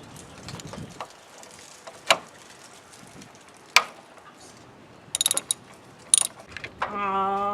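Scattered sharp clicks and clinks of hand tools and parts being handled under a car while working toward the radiator drain petcock. Near the end a loud steady held tone starts and carries on.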